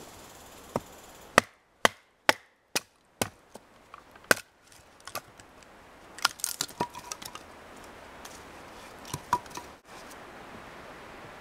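A wooden baton striking the spine of a Fallkniven A1 knife to split a short upright section of wood: about seven sharp cracking strikes, roughly two a second, followed by lighter knocks and clicks as the split pieces are worked and handled.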